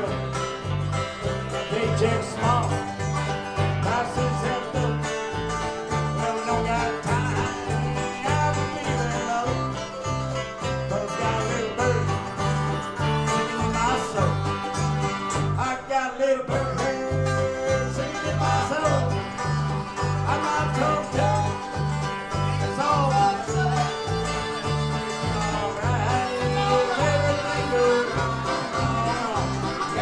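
Live bluegrass band playing an instrumental break: banjo, mandolin, acoustic guitars and harmonica over a steady low beat of about two bass notes a second. The band drops out for a moment about sixteen seconds in, then picks up again.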